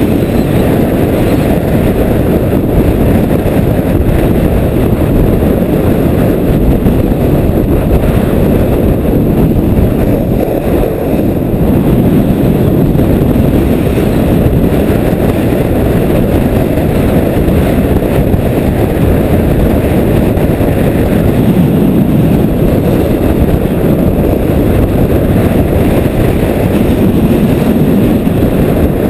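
Heavy wind buffeting the camera microphone during a fast downhill run: a loud, steady, low rumbling rush.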